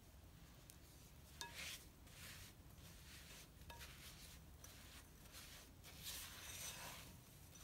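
Silicone spatula stirring and scraping butter and sugar in a glass bowl: faint repeated soft strokes, with a couple of light clinks against the glass.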